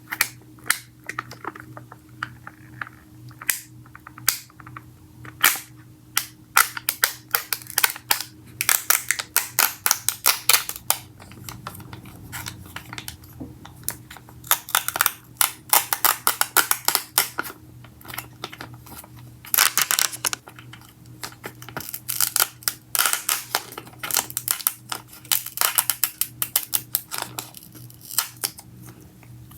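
Packaging of a slime kit being opened by hand: dense runs of close-miked crinkling and crackling snaps in bursts with short pauses.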